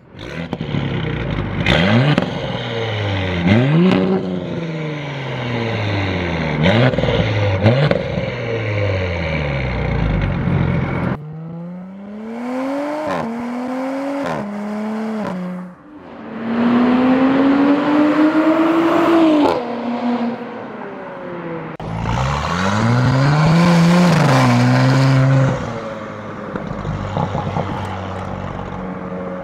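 Audi B9 S4's 3.0-litre turbocharged V6 exhaust, first revved in quick blips for about ten seconds. Then it is heard accelerating hard in three separate runs, its pitch climbing and dropping back at each upshift, and it settles into a steadier, lower drone near the end.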